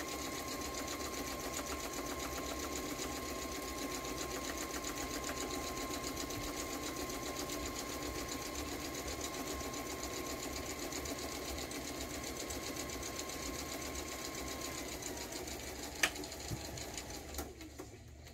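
Sewing machine stitching steadily at a fast even rate with a steady motor whine. About fifteen seconds in the whine sags, there is a sharp click, and the machine stops just before the end.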